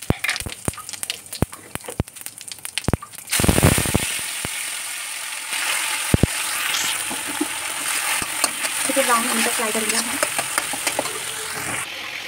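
A few sharp taps and clicks of utensils, then about three seconds in a sudden loud sizzle as ingredients go into hot oil in an iron kadhai, which keeps frying with a steady sizzle.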